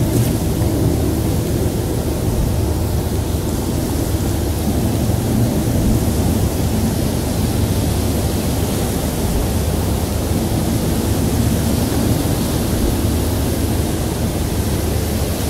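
Ambient electronic soundscape: a steady low drone under an even wash of hiss, with no distinct events.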